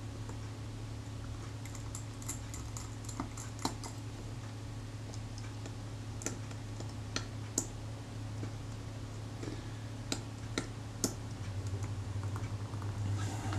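Small scattered clicks and taps of a screwdriver and fingers on the metal of a Kodak Retina IIIS shutter and mount as the screws holding them together are worked loose, over a steady low hum.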